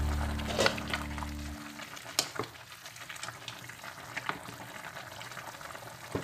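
A stainless steel pot of squash and vegetable soup simmering with a steady bubbling hiss, while a wooden spoon stirs it and knocks against the pot a few times. Background music fades out in the first second or so.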